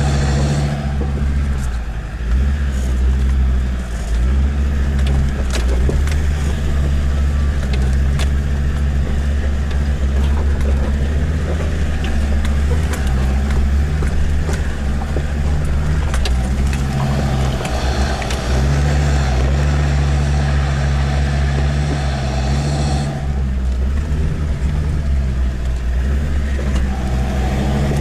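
Land Rover Discovery 2 Td5 five-cylinder turbodiesel engine running with a steady drone, heard from inside the cabin while driving over a rough rocky track. Scattered knocks and rattles sound in the first several seconds, and the engine note turns brighter for several seconds past the middle.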